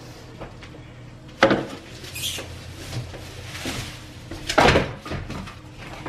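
Knocks and bumps from handling a plastic-wrapped washing machine: two sharp knocks, one about a second and a half in and a louder one past the middle, with brief rustling between.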